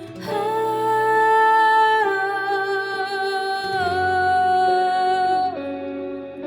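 Worship band music between sung lines: long held notes that move to a new pitch every second or two, with guitar underneath.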